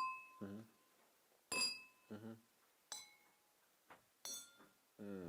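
Four sharp clinks, about a second and a half apart, as a hard object, glass-like in sound, is tapped. Each tap rings on briefly in a bright tone.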